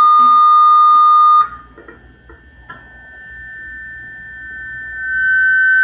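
High-gain electric guitar feedback: a loud, steady, sustained tone that cuts off suddenly about a second and a half in, followed by a second, slightly higher feedback tone that starts faint and swells back to full loudness near the end.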